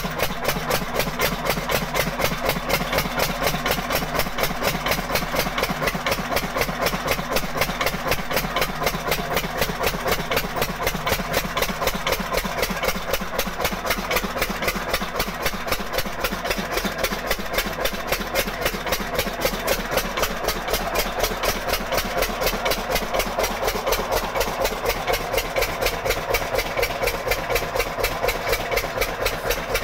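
1975 10-horsepower single-cylinder stationary diesel engine with twin flywheels running steadily under belt drive, its firing an even, rapid thudding beat that does not change speed.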